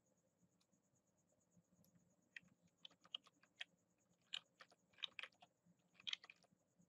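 Faint clicking of a computer keyboard and mouse: a dozen or so quick, irregular clicks starting a couple of seconds in, over a faint steady high whine.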